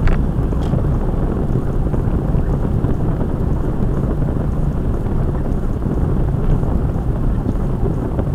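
Steady low rumble of a car's road and engine noise, heard from inside the moving car through a dashcam microphone.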